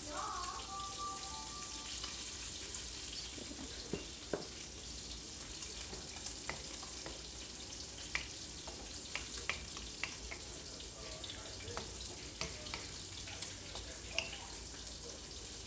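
Food sizzling steadily in a frying pan, with scattered sharp clicks and taps through it.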